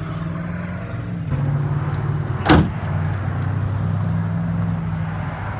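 A pickup's tailgate is shut by hand and latches with one sharp bang about two and a half seconds in. Under it runs the steady low hum of an idling engine.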